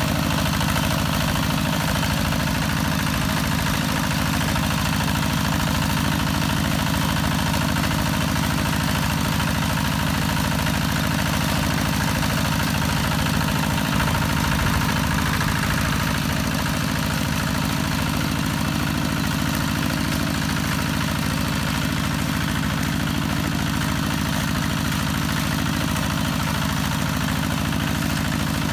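Kubota RT 140 walking tractor's single-cylinder diesel engine running steadily under load, as its cage wheels work the tractor through flooded paddy mud.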